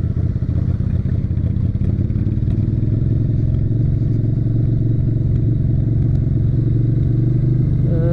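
Small motorcycle engine running steadily, recorded on board. It gets slightly louder from about three seconds in.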